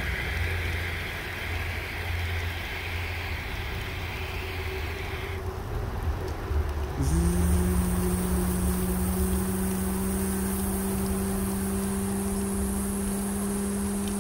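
A steady hiss over a low rumble that cuts off about five seconds in. About two seconds later a motor or engine spins up with a short rising whine and settles into a steady hum.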